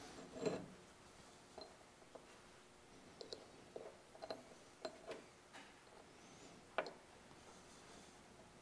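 Faint, irregular small clicks and taps of a steel bolt and steel bar being handled on a wooden workbench, with one sharper click about seven seconds in.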